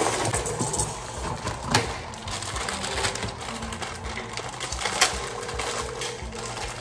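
Plastic wrapper of an instant noodle packet crinkling as it is handled, with a few sharp irregular crackles.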